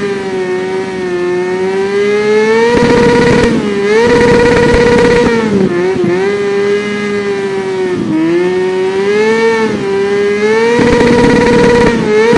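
Motorcycle engine revving hard and continuously: the revs climb and hold at a high peak several times (around three, four to five and eleven seconds in), dipping lower in between.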